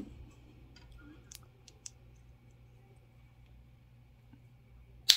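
Snap-fit plastic model kit parts being handled, with a few faint clicks, then one sharp snap near the end as a piece is pushed into place.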